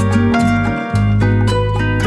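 Background music: a plucked-string melody over a steady bass line.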